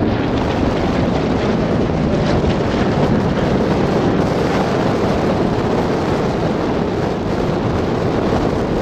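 Two Lockheed P-38 Lightnings flying by overhead, a steady drone from their twin Allison V-12 engines mixed with wind rushing over the microphone.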